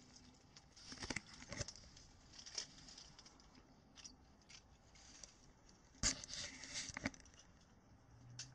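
Dry twigs and brush crackling and rustling as someone pushes through dense scrub, in irregular snaps with the loudest a little after six seconds.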